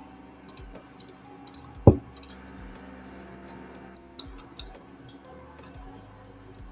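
Scattered light clicks of a computer keyboard and mouse, with one loud dull thump about two seconds in.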